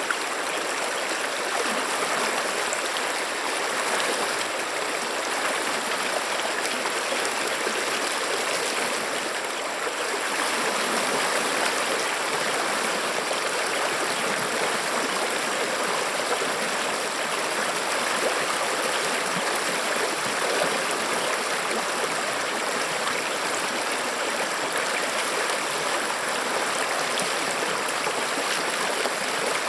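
A stream flowing: a steady, continuous rush of running water.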